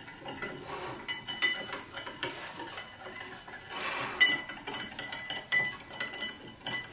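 Metal spoon stirring water in a glass measuring jug to dissolve salt and sugar, clinking repeatedly against the glass with a light ringing tone. One louder clink comes about four seconds in.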